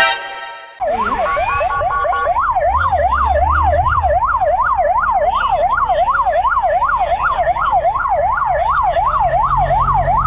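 Electronic siren of a Kawasaki GTR1400 police motorcycle. It gives a brief loud horn-like blast at the start, then about a second in winds up into a fast yelp, sweeping up and down about three times a second. The motorcycle's engine runs low underneath.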